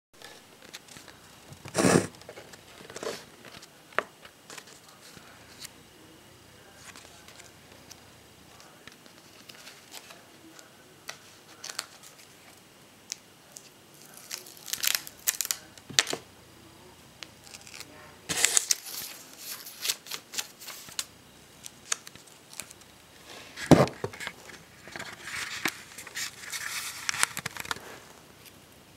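Clear tape and paper being handled: intermittent tearing and crinkling, with scattered clicks and taps. The loudest sounds are two knocks, about 2 seconds in and about 24 seconds in.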